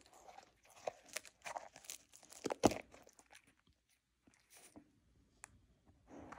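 Husky chewing a dried Icelandic cod skin roll: a run of crunches and tearing bites in the first three seconds, the loudest near the end of that run. A pause with a few faint ticks follows, then one more crunch near the end.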